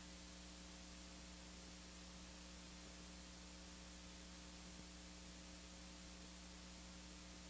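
Near silence: steady recording hiss with a low electrical hum.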